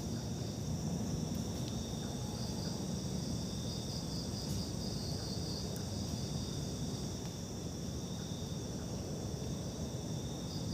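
A chorus of night insects chirring steadily in high-pitched bands, over a low steady rumble.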